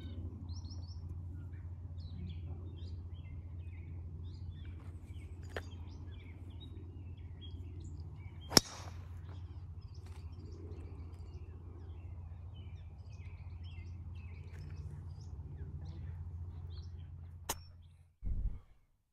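A golf club strikes a ball once with a sharp crack a little under halfway through, over a steady low hum and birds chirping. The hum fades near the end, followed by a faint click and a brief low thump.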